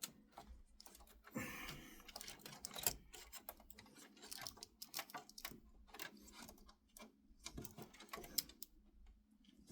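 Faint, irregular clicks and rustling as cables are handled and pushed into place inside a PC case, with a longer rustle about a second and a half in.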